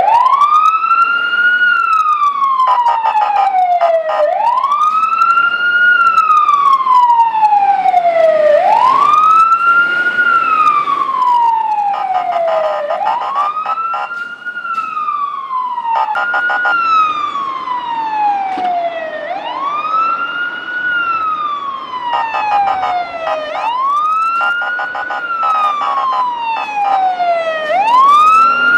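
Fire truck siren sounding a wail: each cycle rises quickly in pitch, then falls slowly, repeating about every four seconds.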